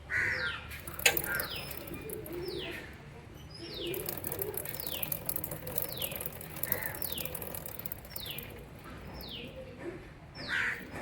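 A bird repeating a short, high, falling chirp about once a second, with one sharp knock about a second in.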